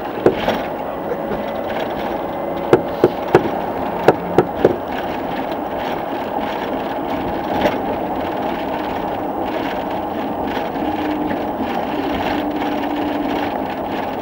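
Steady rumble of road and engine noise inside a moving vehicle, with sharp knocks: one just after the start, then six in quick succession about three to five seconds in.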